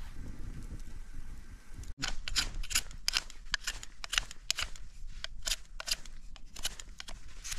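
Knife blade shaving a peeled wooden stick, starting about two seconds in: a quick series of short, sharp scraping cuts, about three a second.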